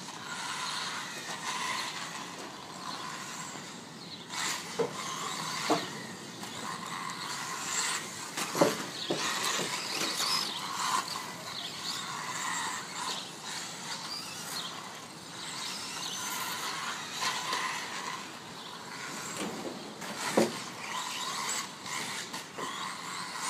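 Yokomo B-Max4 III 1/10 electric 4WD buggy running on a turf-carpet track: its electric motor whines up and down with the throttle over the steady rush of the tyres, with a few sharp knocks as the car lands and bumps over the track.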